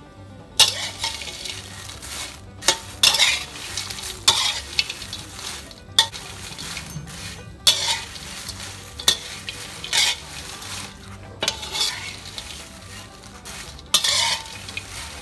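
A metal spatula scraping and tossing dried red chillies around a metal wok as they are dry-roasted: a dry rustle of the crisp chillies, broken by sharp scrapes of the spatula on the pan about every second or so.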